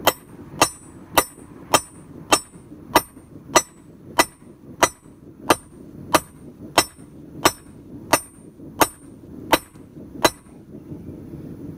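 A 3-pound hammer strikes a hot railroad spike on a steel anvil in a steady rhythm, about seventeen blows at roughly one and a half a second, each with a short metallic ring. This is hand-forging the spike into a knife blade. The hammering stops about a second and a half before the end.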